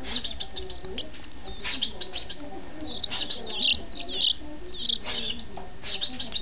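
European goldfinch chirping: a run of short, high calls, the busiest and loudest about three seconds in, several of them sliding down in pitch. These are likely a chick's begging calls at feeding time.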